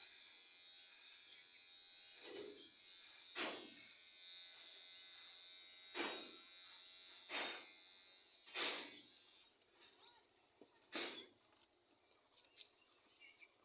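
Electric hair clippers running during a self-haircut, a steady high-pitched buzz with about six short louder passes spread through it. The buzz fades out about ten seconds in.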